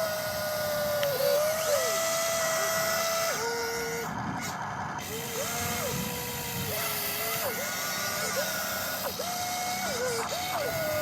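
Small electric motors of a Huina radio-controlled toy excavator whining, starting and stopping in short runs of a second or two, the pitch stepping up and down as different functions are driven.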